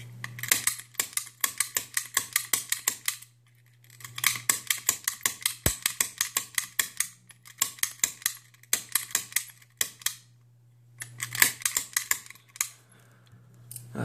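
Sparrows snap gun being triggered in a brass pin-tumbler lock, its spring-driven needle snapping against the pins to knock them up to the shear line. It goes in runs of sharp metallic clicks at about six a second, with short pauses between the runs.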